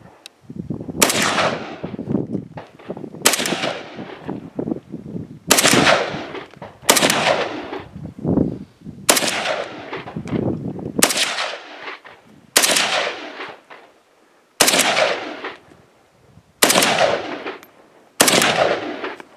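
AK-pattern rifle firing single shots from an X-Tech magazine, about a dozen rounds spaced one to two seconds apart. Each shot is followed by a short echo.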